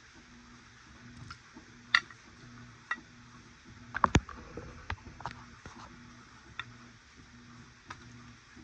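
Scattered clinks and knocks of tableware, with a few sharp ones close together about four seconds in, over a faint low hum.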